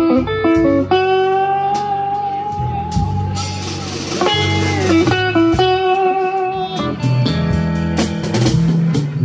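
Live blues band playing an instrumental passage: electric guitar lead with long held notes and a downward bend near the middle, over bass guitar and drum kit.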